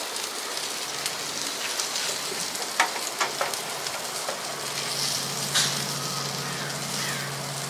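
Steaks sizzling on foil over a barbecue grill's flames, a steady hiss with a few faint clicks. A low steady hum comes in about halfway through.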